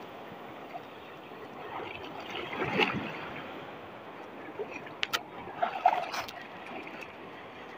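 Shallow sea water washing and sloshing as small waves pass, with louder splashes about three and six seconds in and a few sharp clicks just after five seconds.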